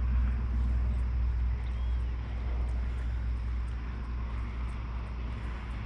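Steady low rumble with an even hiss of outdoor background noise, without any distinct knocks or splashes standing out.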